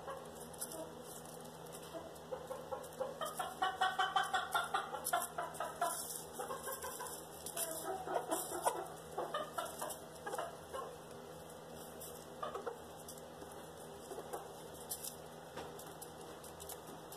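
Chickens clucking: a quick run of clucks about four seconds in, then scattered clucks that thin out toward the end.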